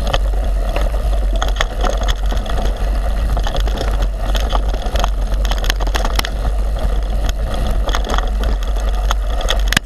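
Wind buffeting an action camera's microphone during a fast mountain-bike descent: a loud, steady low rumble, with the tyres rolling over the dirt trail and the bike rattling in many short clicks.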